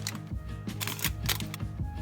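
Background music with held notes, a bass line and a quick clicking beat.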